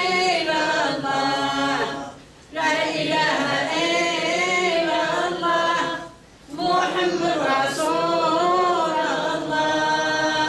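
An elderly woman singing an unaccompanied religious chant in Kabyle. It comes in long, slowly bending melodic phrases, with two short pauses for breath, about two seconds in and about six seconds in.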